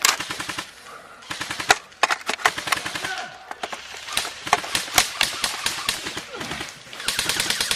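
Airsoft guns firing in rapid full-auto bursts: a quick rattle of clicks, several bursts with short gaps between them.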